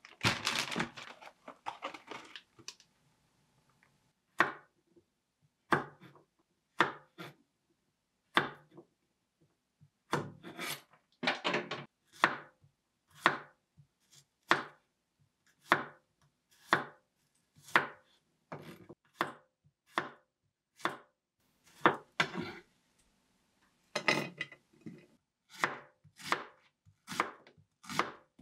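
Chef's knife slicing garlic and onion on a wooden cutting board: single sharp cuts, about one a second, now and then in quicker runs. It opens with a plastic zip bag rustling for a couple of seconds as the vegetables are taken out.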